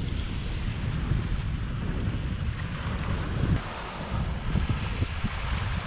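Wind buffeting the microphone in an uneven, gusty low rumble, with small waves lapping against a stony lake shore.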